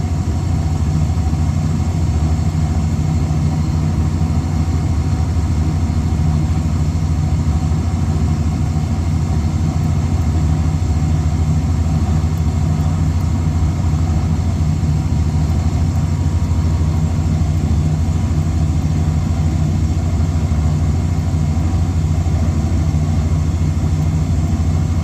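Trane TSC120 ten-ton rooftop packaged air conditioner running, a steady, even low hum with no change in pitch or level.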